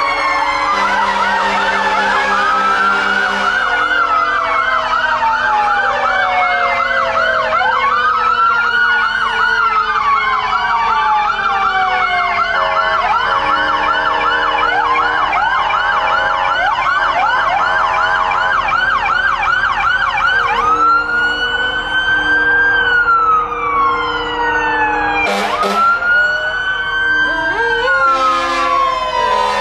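Several emergency-vehicle sirens on police cars and fire trucks sounding at once. Slow rising and falling wails overlap a fast yelp that cycles about two or three times a second and stops about two-thirds of the way through.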